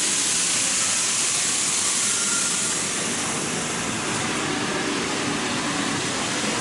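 N gauge model trains running on the layout: a steady whirring hiss of small motors and wheels rolling on the track, easing off a little past the middle.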